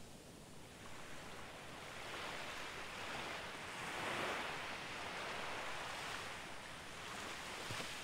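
Small sea waves breaking gently and washing up a sandy beach. The rush of surf swells to its loudest about halfway through, eases, and swells again more softly near the end.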